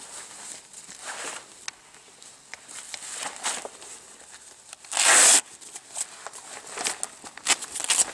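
One loud, distorted burst about five seconds in, over light rustling and scattered small clicks.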